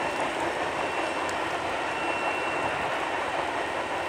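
Heavily loaded freight cars rolling fast on the rails: a steady rolling rumble of wheels on track, with a thin steady high ringing tone over it.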